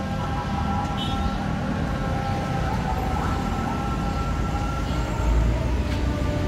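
Street traffic: a steady rumble of passing vehicles, with a heavier low rumble about five seconds in as a vehicle goes by.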